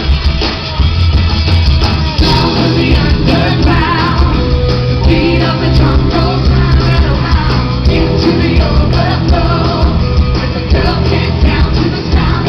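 Loud live pop-rock music with a steady beat and singing, from a stage show's band and vocals; the music fills out about two seconds in.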